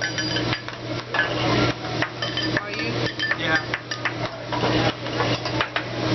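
Hibachi chef's metal spatula and shaker cup clattering and tapping against the steel griddle: a quick, uneven run of sharp metallic clinks with a short ring.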